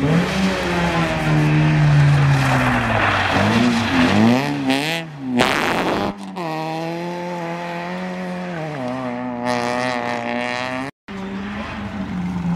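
Renault Mégane rally car's engine revving hard, its pitch climbing and falling repeatedly as the car slides sideways on loose gravel. There is a burst of gravel and tyre noise about halfway through, and the sound cuts out for an instant near the end.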